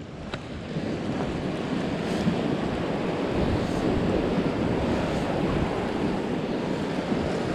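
Sea surf washing and churning against rock ledges, a steady rushing that swells a little about a second in, with wind buffeting the microphone.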